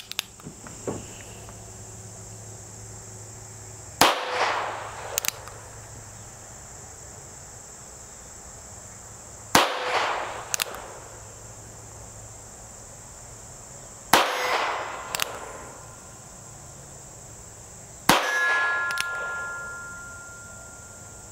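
Four shots from a North American Arms 22S mini revolver firing CCI CB .22 short rounds, spaced about four to five seconds apart, each a sharp crack with a short decaying tail. After the fourth shot, the steel target gives a brief ringing tone.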